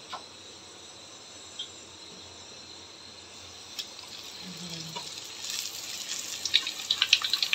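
Hot oil in a black kadai sizzling as a round of luchi dough is slipped in to deep-fry. It starts softly a few seconds in and builds to loud, fast crackling near the end.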